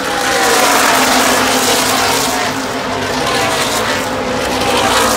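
ARCA stock cars' V8 engines at racing speed on the track, several cars at once, their engine notes sliding slowly down and back up in pitch as they pass.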